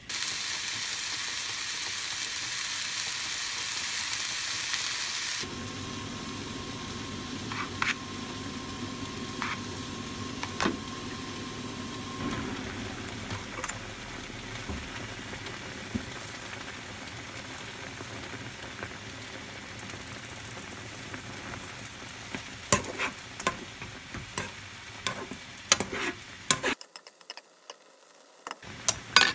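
Pork and cabbage sizzling in a frying pan over a gas flame, loud for the first five seconds and then quieter. From about 22 seconds in, a spoon clicks and scrapes against the pan as the red-pepper sauce is stirred through.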